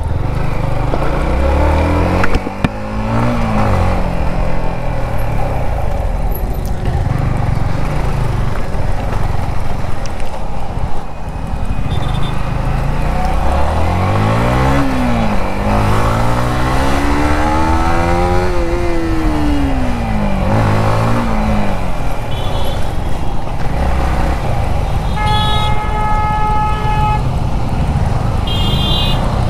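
Yamaha 155 cc single-cylinder motorcycle engine running on the road, its pitch rising and falling several times as it revs and shifts, over steady wind and traffic noise. A vehicle horn sounds for about two seconds near the end, then briefly once more.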